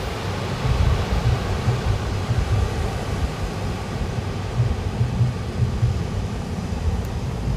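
Wind buffeting the microphone in uneven gusts over the steady wash of sea surf.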